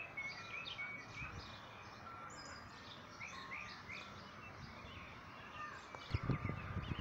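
Several birds chirping and singing with many short, quick notes. A low rumble comes in about six seconds in.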